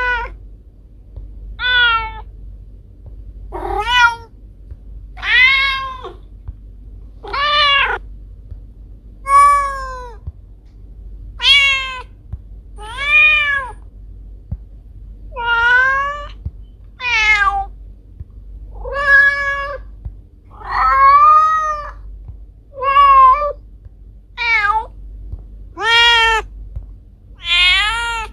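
A domestic cat meowing over and over, about one meow every one and a half to two seconds, each meow rising and then falling in pitch, over a low steady hum.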